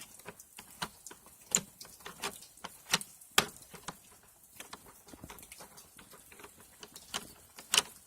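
Irregular clicks and taps of a flathead screwdriver working loose the plastic maintenance panel on a Honda EU2000i inverter generator. The louder knocks come about a second and a half in, around three seconds in and near the end.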